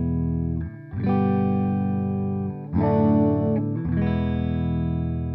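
Clean electric guitar tone from a Gibson Les Paul through a Fender Deluxe Reverb reissue amp, with no compression: full chords strummed and left to ring, with new chords struck about a second in, near three seconds and about four seconds in.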